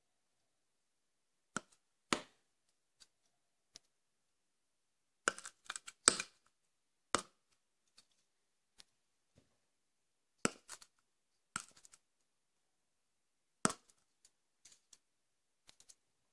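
Plastic aerosol-can cap striking ceramic wall tiles in a series of sharp, irregularly spaced taps, some in quick pairs, as cockroaches are crushed against the tiles.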